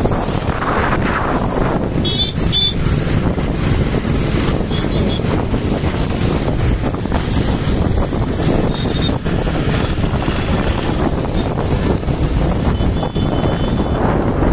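Wind buffeting the microphone on a moving motorbike, over a steady roar of engine and road noise, with two short high beeps about two seconds in.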